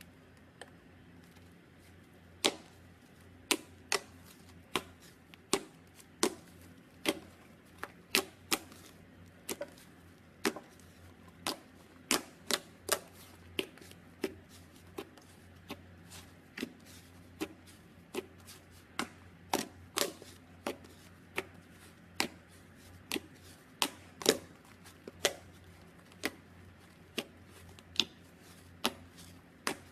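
Slime being handled, giving sharp, irregular popping clicks, about one or two a second.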